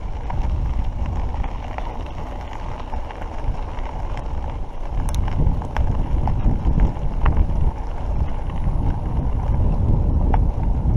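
Wind buffeting a camera microphone on a mountain bike riding a rough dirt road, with a steady low rumble from the tyres. A few sharp clicks and rattles come from the bike jolting over ruts.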